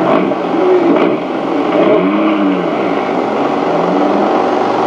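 Rally car engine revving, its pitch rising and falling several times, over a steady hiss.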